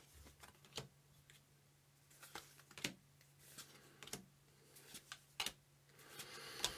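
Faint handling of trading cards and a booster pack: a few scattered soft clicks and rustles at irregular intervals, over a low steady hum.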